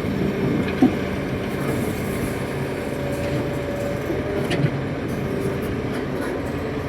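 Hitachi 330 hydraulic excavator's diesel engine running steadily while working, with a sharp knock about a second in and another near the middle.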